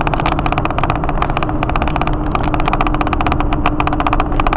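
Vehicle cruising on a highway, heard from inside the cabin: steady road and engine noise with a constant hum, overlaid by a dense crackle of small clicks.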